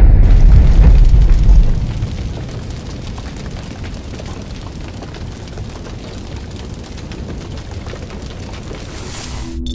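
Logo-sting sound effect of a fiery blast: a deep, loud boom rumbling away over the first two seconds, then a steady crackling hiss like a burning fire. Near the end the hiss swells briefly and cuts off suddenly.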